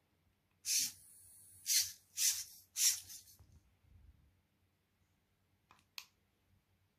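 Hobby servos of a six-legged hexapod robot whirring in four short bursts as its body shifts, then two quick clicks near the end, as a button on a Sony game controller is pressed.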